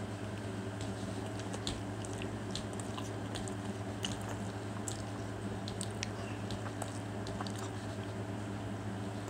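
A person chewing a mouthful of burger, with small wet mouth clicks scattered through. A steady low hum runs underneath.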